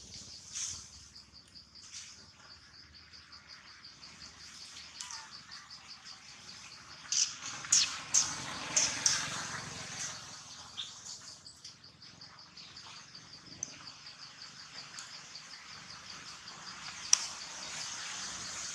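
Steady fast-pulsing, high-pitched insect trill, with a cluster of short, sharp high chirps or squeaks about seven to nine seconds in over a rustle of dry leaves, and one more sharp chirp near the end.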